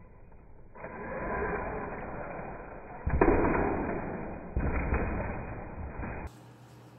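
RC monster truck running, heard as a muffled rush of noise that builds from about a second in, with two heavy thuds about three and four and a half seconds in. The noise cuts off abruptly near the end.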